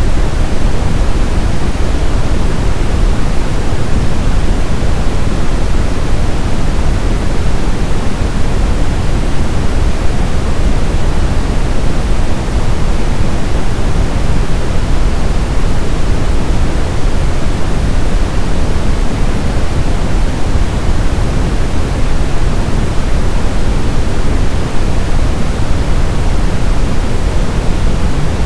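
Brown noise: a steady, loud, even hiss weighted toward the low end, like a deep rumble.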